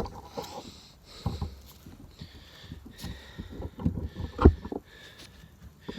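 Camera tripod being handled and adjusted: scattered clicks and knocks, with a louder knock about four and a half seconds in.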